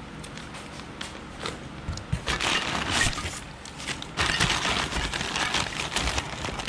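Rustling and crinkling of packaging as new exhaust up-pipe parts and hardware are unpacked and handled, in a short stretch about two seconds in and again from about four seconds on.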